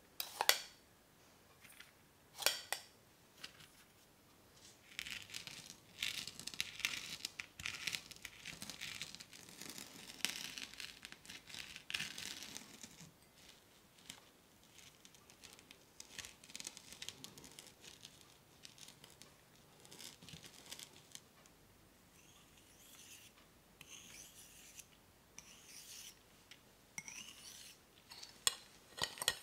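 Buttered speculoos cookie crumbs being pressed into the sides of a metal tart ring with the bottom of a glass: gritty rubbing and crunching, densest from about five to thirteen seconds in, then more scattered. There is a sharp tap about half a second in and another about two seconds later, and a few light taps and scrapes near the end.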